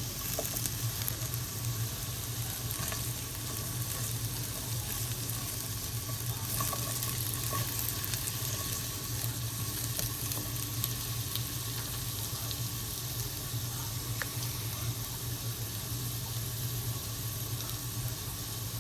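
Potatoes and carrots sizzling as they fry in a pan, a steady, even crackle with a few faint ticks scattered through. A steady low hum runs underneath.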